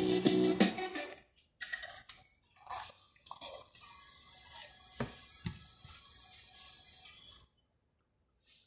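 Music from a Pioneer DEH-1650 car CD receiver stops about a second in. Clicks and clunks of the unit's CD mechanism follow as it ejects a disc, which is pulled from the slot. A steady hiss with two more sharp clicks then runs until it cuts off shortly before the end.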